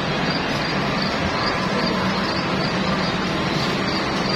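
Steady, even machine hum and background din from a small horse carousel as it turns, with no distinct events.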